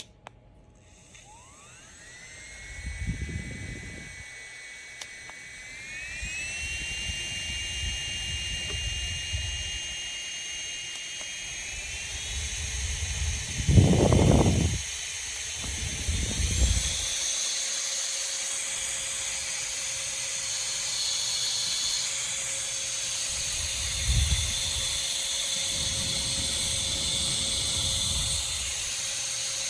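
JISULIFE handheld turbo fan switched on about a second in, its motor whine rising quickly, then stepping up in pitch a few times as it is switched to higher speeds, over a steady hiss of rushing air. Bursts of low rumble come and go, the loudest about halfway through.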